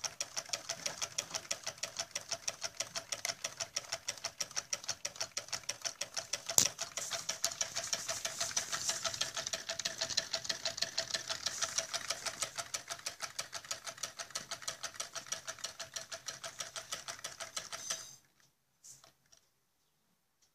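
Homemade Stirling engine with a syringe water pump running, its mechanism clicking in a fast, even rhythm of about six clicks a second. One louder knock comes about a third of the way in, and the clicking cuts off suddenly near the end.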